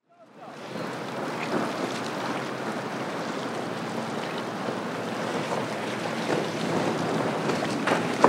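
Sunsation 40 CCX center console running fast past the microphone: water wash and spray from the hull over a steady outboard engine drone, with wind on the microphone. The sound fades in over the first half second.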